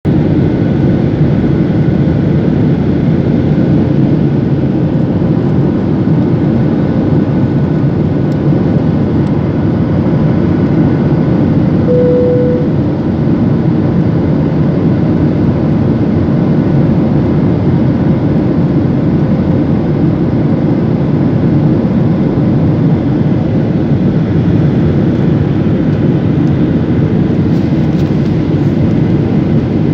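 Steady cabin noise of a jet airliner in flight, heard from a window seat over the wing: an even, low rushing noise from the turbofan engines and the airflow, with faint steady whine tones above it. A brief single tone sounds about twelve seconds in.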